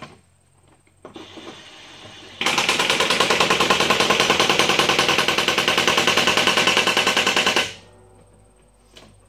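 Impact wrench running a mower blade bolt down, then hammering in a loud, rapid rattle for about five seconds as it tightens the bolt, stopping abruptly.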